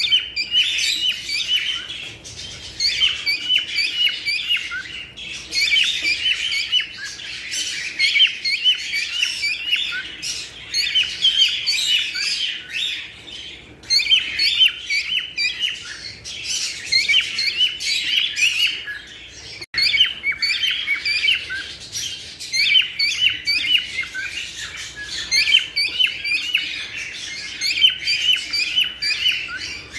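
Cockatiels chirping and calling in rapid, high, repeated notes, in long chattering phrases broken by a couple of short pauses.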